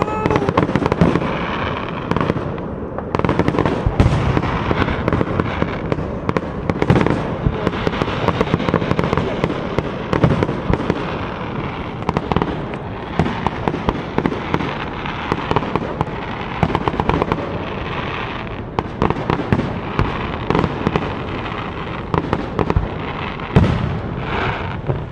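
Fireworks going off without a break: a dense stream of overlapping bangs, pops and crackles, with sharper, louder reports every second or so.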